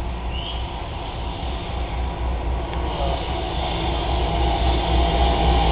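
Diesel freight locomotives approaching, their engines running with a steady low hum that grows louder as the train draws near.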